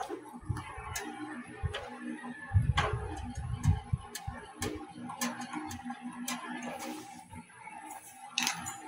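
Irregular sharp clicks and light knocks of hands handling parts in a thin-metal PC case during assembly, with a duller rumbling handling noise from about two and a half to four seconds in.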